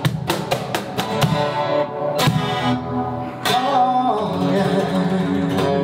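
Acoustic guitar strummed with cajón hits. The cajón drops out after about a second and a half, and a man's voice then sings a held line over the guitar.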